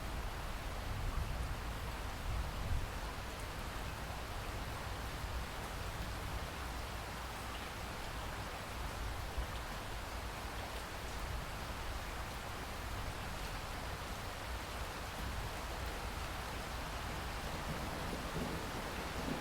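Steady rain falling in a constant, even hiss, with a low rumble underneath.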